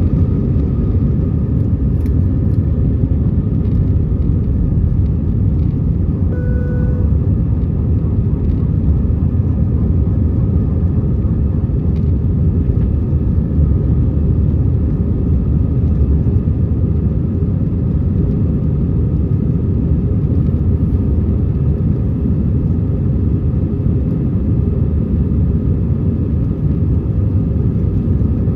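Airbus A320 engines and airflow heard from inside the cabin: a steady, loud low rumble. A short tone sounds about six seconds in.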